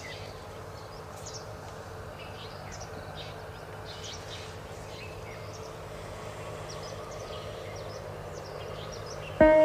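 Birds chirping and calling in short, scattered notes over a steady low background hum. Plucked-string music starts just at the end.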